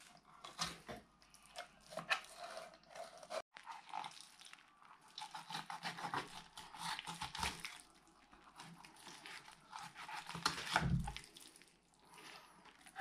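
Knife filleting a young bream on a plastic tray: irregular soft scrapes and wet crackles as the blade cuts through the flesh and skin. There is a louder dull knock near the end.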